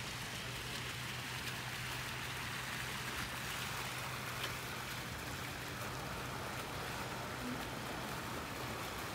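Steady hiss of splashing water, with a faint low hum underneath.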